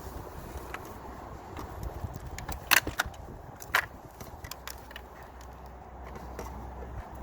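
Plastic clicks and knocks from a car's interior door trim panel being worked loose from its clips, with two sharp snaps about three and four seconds in, over a steady low rumble.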